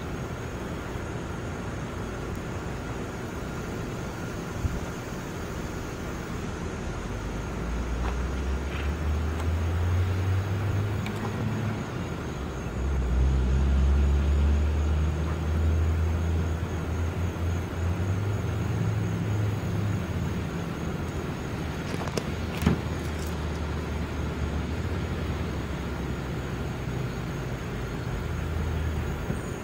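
Low rumble of a motor vehicle engine, building up about eight seconds in and loudest around halfway, over a steady hiss; a single sharp click a little past two-thirds of the way through.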